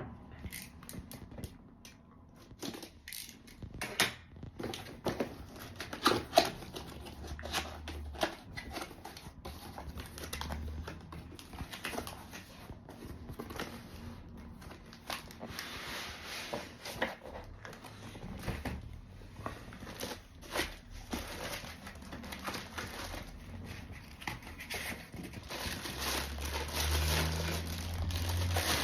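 A DVR being unboxed: packaging crinkling and tearing, with scattered clicks and knocks as the box and unit are handled.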